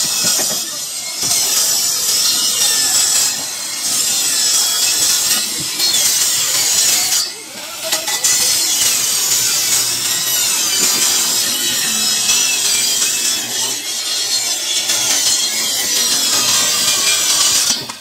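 Handheld electric circular saw cutting film-faced plywood shuttering board, a steady high-pitched rasp of blade through wood that dips briefly a few times, most clearly about seven seconds in.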